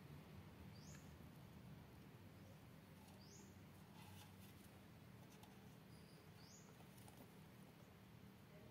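Near silence with three faint, short, high chirps that rise in pitch, about two to three seconds apart.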